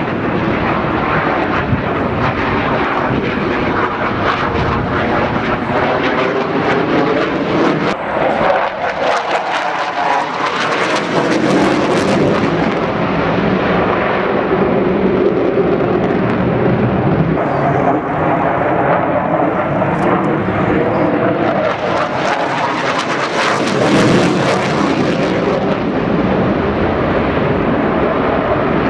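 A Panavia Tornado's two RB199 turbofan engines in afterburner, a loud continuous jet roar with crackle as the jet flies its display. The roar swells and brightens about eleven seconds in and again about twelve seconds later as the aircraft turns past.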